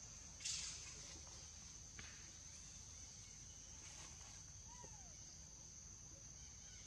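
A steady high drone of insects. A brief scratchy rustle comes about half a second in, and a faint short call rises and falls near the five-second mark.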